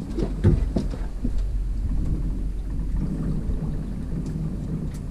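A few sharp knocks as someone steps up onto a fishing boat's deck in the first second, then a steady low rumble of wind buffeting the microphone.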